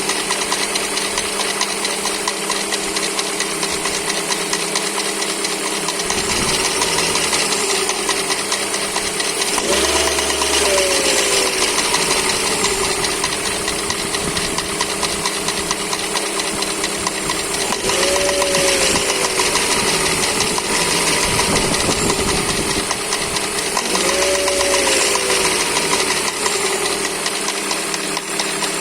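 Toyota 4ZZ-FE 1.4-litre four-cylinder engine running with a heavy, rapid knock, revved briefly three times. The owner suspects worn crankshaft bearing shells.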